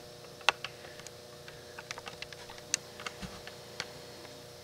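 Scattered light clicks and taps at an irregular pace, handling noise from a handheld camcorder being moved and zoomed in, with one soft thump about three seconds in. A faint steady hum sits underneath.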